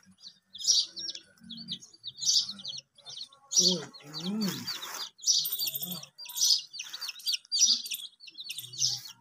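A flock of young chicks peeping: high, short, downward-sliding peeps in overlapping bursts about once a second.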